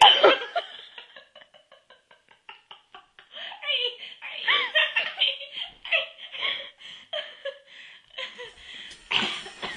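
People laughing: a run of quick, faint giggling pulses, then louder, longer laughs from about three seconds in.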